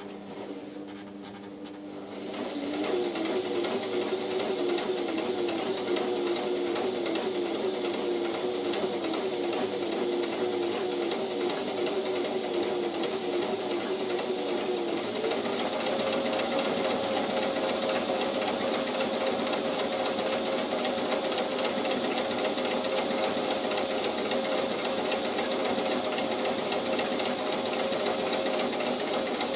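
Brother LS14 electric sewing machine running a straight stitch, motor and needle going at a steady rhythm. It runs slowly at first and speeds up, getting louder, a couple of seconds in. Its pitch steps up again about halfway through as it runs a little faster.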